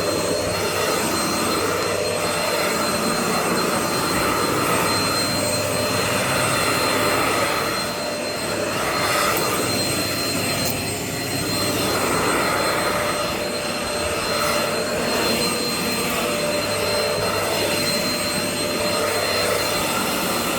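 Bush cyclonic stick vacuum cleaner running in handheld mode: a steady high-pitched motor whine over the rush of suction air.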